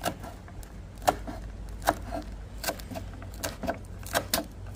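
Chef's knife chopping culantro leaves on a bamboo cutting board: a series of sharp knocks of the blade on the wood, uneven, about one or two a second, coming quicker near the end.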